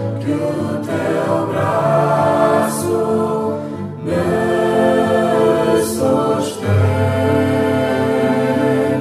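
Choral music: a choir singing held chords that change every second or two.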